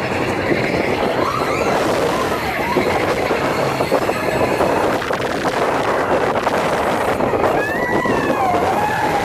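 Big Thunder Mountain Railroad mine-train roller coaster running along its track at speed with a steady, loud rattle of cars and wheels. Riders' shouts and screams rise over it, with a cluster of them near the end.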